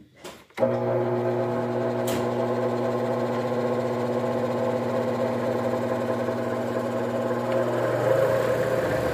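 Sears Craftsman variable-speed bench grinder with 6-inch wheels and a totally enclosed permanent-magnet motor, switched on about half a second in and then running with a steady hum; the pitch shifts slightly near the end.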